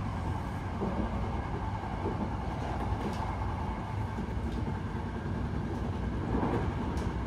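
Steady rumble of a train running along the track, heard from inside the carriage, with a few faint clicks.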